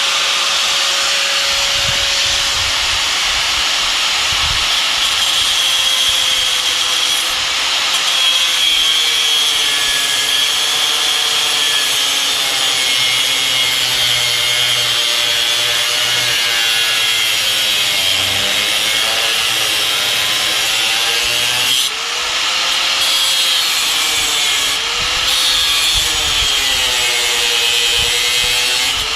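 Grinder cutting away rusted, stripped bolts on a steel rail, running continuously, its pitch sagging and recovering as the wheel bites under load. It lets up briefly about three-quarters of the way through, then carries on.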